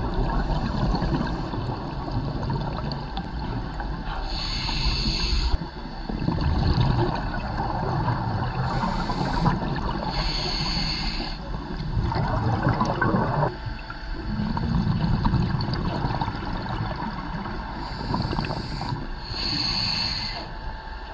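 Scuba regulator breathing picked up underwater: three hissing inhalations several seconds apart, with long low bubbling exhalations in between.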